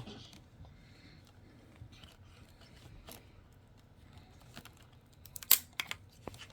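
Faint handling of plastic vacuum-hose parts, then a quick cluster of sharp plastic clicks about five seconds in, the loudest one first.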